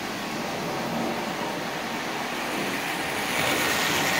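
Marx tin toy train of 3/16-scale cars running on metal toy-train track, a steady rolling rumble and rattle of tin cars and wheels. It gets louder about three seconds in as the train passes close.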